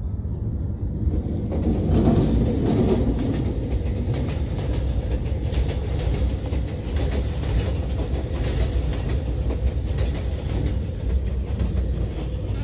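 Commuter train passing close by: a steady heavy rumble of carriages with wheels clacking over the rail joints, swelling about a second in and then holding.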